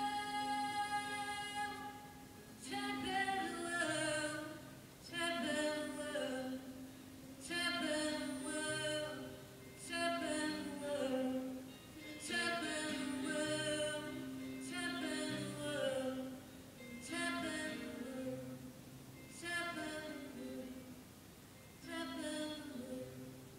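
A woman singing a slow song live, accompanying herself on acoustic guitar, in phrases every couple of seconds that mostly fall in pitch over a held low note.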